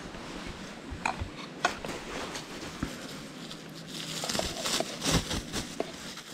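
Cutlery clinking and scraping against camping dishes during a meal: scattered light clicks, coming thicker and brighter for a couple of seconds near the end.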